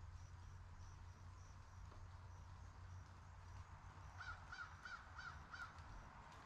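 A bird gives five quick, evenly spaced calls about four seconds in, over a faint low rumble that fades out around the middle.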